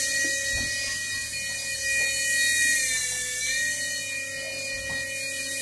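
Small propeller motor of a flying LED spinner toy whining steadily, its pitch sagging slightly about three seconds in and then recovering.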